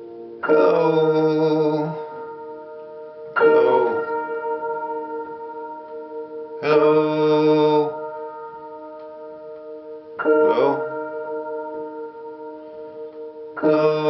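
Slow, sad song on an upright piano with held notes ringing on, and a voice singing long wavering notes about every three and a half seconds, five times.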